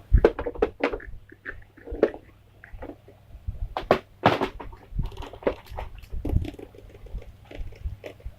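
Irregular clicks, knocks and scrapes of hard plastic parts and a hand tool being handled, as screws on a plastic toy are worked at, over a low steady hum.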